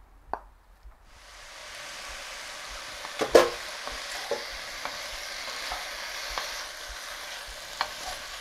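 Cubes of smoked pork loin sizzling and frying in hot oil in a cast-iron Dutch oven as they are seared. The steady sizzle starts about a second in, once the meat is in the pot, and a few sharp knocks come from the wooden spoon stirring the pieces.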